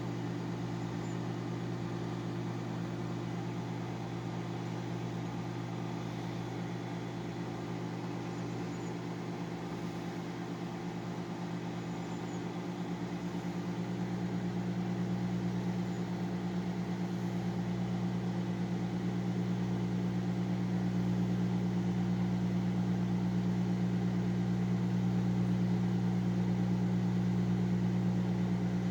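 Microwave oven running with a steady low electrical hum while heating a bar of Ivory soap. The hum grows gradually louder over the second half.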